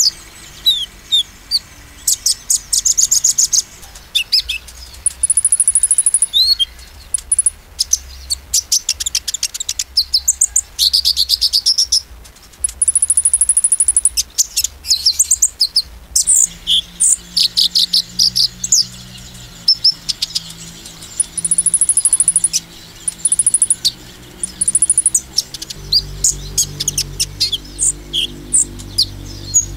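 Van Hasselt's sunbird (kolibri ninja) singing its rapid 'nembak' song: fast bursts of sharp, very high twittering and trills, broken by a few long, thin, very high notes, the song bird keepers play to provoke other males.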